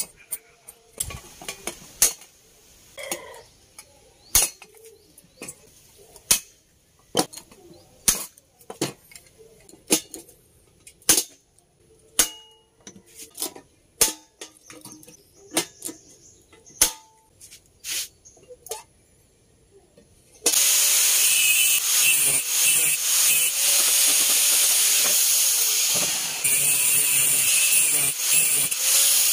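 Scattered sharp metallic clicks and clinks of hand tools as steel hinges are fitted to a steel cylinder. About twenty seconds in, an angle grinder with a thin cutting disc starts cutting steel held in a vise, loud and steady.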